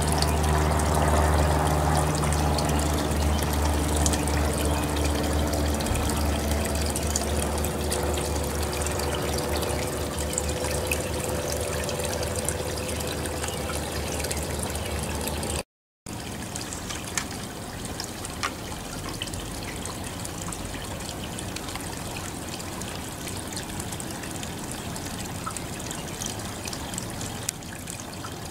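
Water trickling steadily, with a low hum and several steady tones under it that slowly fade over the first half. The hum stops at a brief break about halfway, after which the trickle goes on alone, a little quieter.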